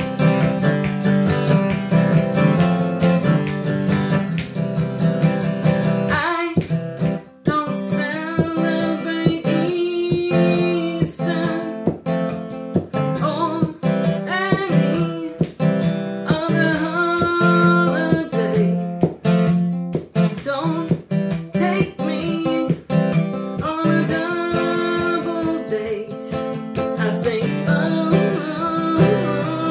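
Acoustic guitar strummed steadily. About six seconds in, a woman's singing voice comes in over it.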